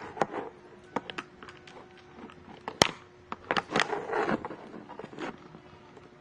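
Close handling noise of plastic lip gloss tubes: a series of small clicks and knocks with fingers rustling against the microphone, one sharp click about three seconds in.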